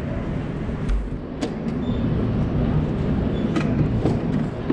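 Go-kart motors running with a steady low hum, with a few sharp clicks and knocks.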